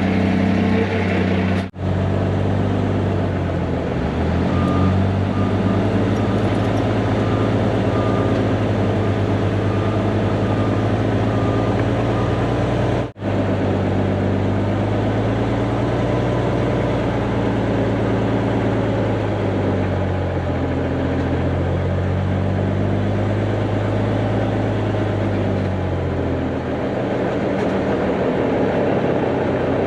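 Heavy diesel equipment engine running steadily under work. A backup alarm beeps about once a second for several seconds in the first half. The sound cuts out sharply twice, as at edits.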